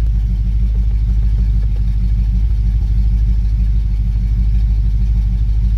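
Cadillac Fleetwood's 5.7-litre LT1 V8 idling steadily, heard from inside the cabin. The engine is cold and warming up after a radiator replacement and coolant refill.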